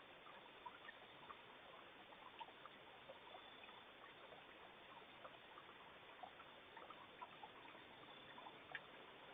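Near silence: a faint steady hiss with small, irregular ticks and clicks scattered throughout.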